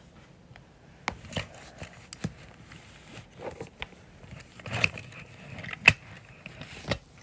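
Toy car being handled and wiped with a cloth on a wooden floor: scattered clicks, taps and rubbing, starting about a second in, with the sharpest click about six seconds in.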